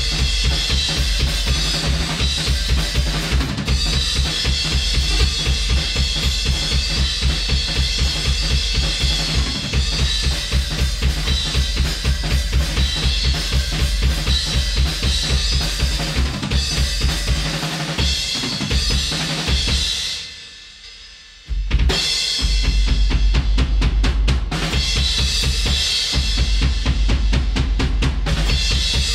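Playback of a multitracked drum kit recording, with kick and snare hits in a steady beat and the LA-2A compressor bypassed, so the drums are uncompressed. About twenty seconds in the drums drop away for about a second and a half, then come straight back in.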